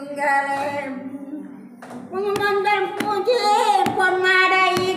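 An elderly woman singing a song without accompaniment, holding long notes, with a short pause partway through. From about two seconds in, sharp claps or taps come roughly once a second, keeping time.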